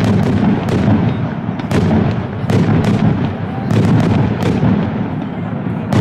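Aerial firework shells bursting in quick succession: a string of sharp bangs, several close together at times, with a continuous low rumble of echoes between them.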